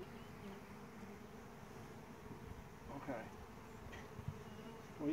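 Honeybees buzzing steadily around a newly installed Warré hive, the hum of many bees in flight. A light knock sounds about four seconds in.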